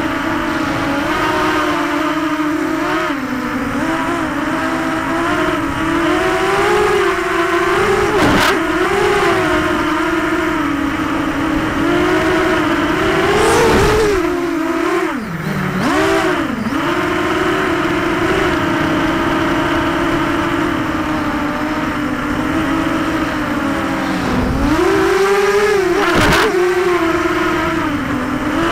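Brushless motors and propellers of a ZMR 250 racing quadcopter, heard up close from its onboard camera, whining steadily with the pitch rising and falling as the throttle changes. The pitch drops sharply and recovers twice, about halfway through and again near the end, with a few brief clicks along the way.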